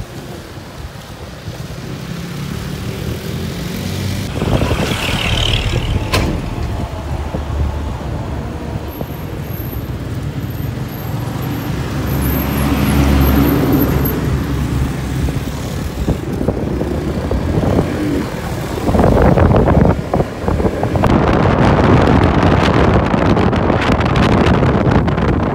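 Riding on a motorcycle: a steady engine drone under road and wind noise buffeting the microphone, growing louder toward the end.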